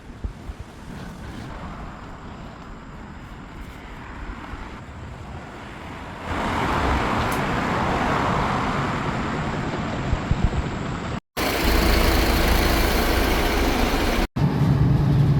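Road traffic and a city bus running, a steady rumble that grows louder about six seconds in. Two sharp cuts come about eleven and fourteen seconds in, and after them a bus engine hum is heard from close by.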